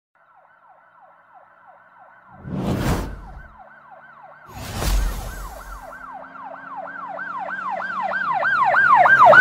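Emergency siren sound effect in a fast yelp pattern, falling sweeps about three a second, growing steadily louder. Two deep whooshing booms cut through it about three and five seconds in.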